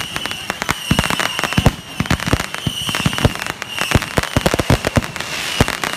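Fireworks finale barrage: a continuous, rapid run of aerial shell bursts and crackles, many bangs a second with no break.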